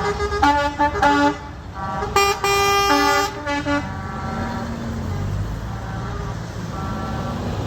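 Truck air horn sounding a quick run of short blasts at changing pitches, then one longer blast about two seconds in. After that only a low vehicle rumble is left, slowly rising and falling.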